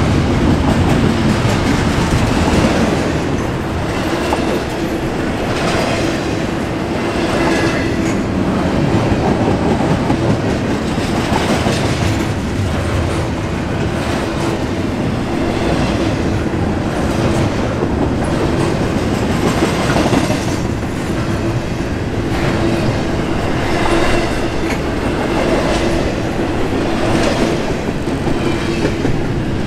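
Double-stack intermodal container train's well cars rolling past: a loud, steady rumble of steel wheels on rail, with a recurring clickety-clack and a steady hum underneath.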